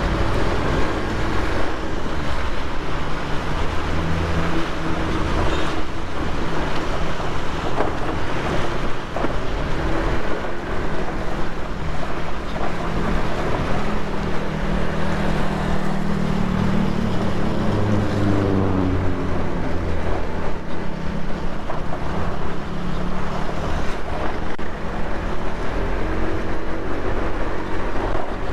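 Motorcycle engine running under way, its pitch rising and falling as the revs change, over a steady rush of wind and road noise on the helmet microphone.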